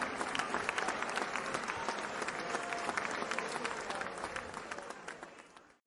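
Crowd applause, many hands clapping, fading out over the last second.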